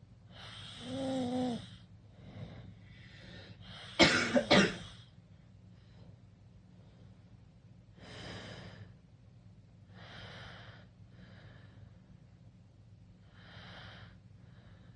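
Sleeping teenager's snoring: a pitched snore about a second in, then a sudden loud cough with two or three sharp pulses at about four seconds, the loudest sound. After it come quieter breaths every two to three seconds.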